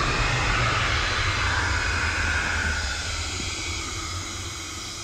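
Sliding snow rushing past: a low rumble with a hiss over it, fading slowly through the second half.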